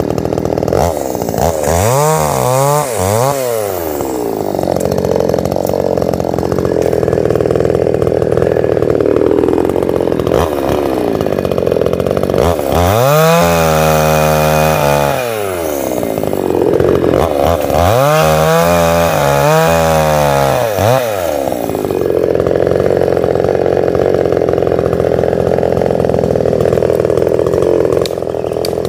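Two-stroke chainsaw cross-cutting a felled tree trunk into fence-post lengths: the engine revs up and holds high while the chain bites into the wood three times, dropping back to idle between cuts.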